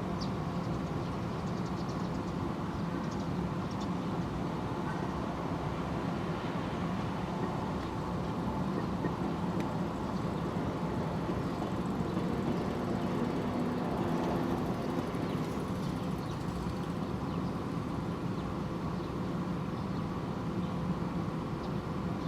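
JR 103 series electric train passing over a level crossing: continuous running noise with a steady tone underneath, swelling slightly about two thirds of the way through.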